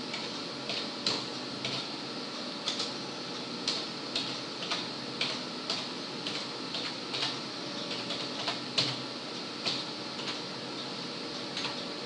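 Computer keyboard keys typed one at a time at a slow, uneven pace, about twenty key clicks, roughly two a second, over a faint steady hiss.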